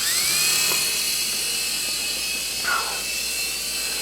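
Small infrared remote-control toy helicopter's electric rotor motor spinning up with a rising whine, then running at a steady high whine.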